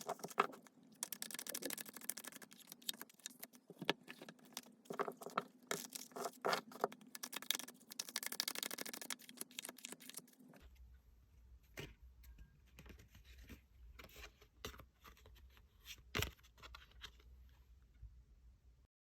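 Tarot cards being shuffled and handled: dense rustling and clicking of the cards. About ten seconds in this gives way to a quieter stretch of occasional light taps over a low hum.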